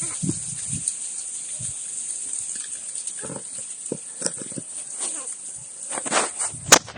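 Crow giving short, hoarse, cough-like sounds, one or a few at a time, with a louder cluster near the end.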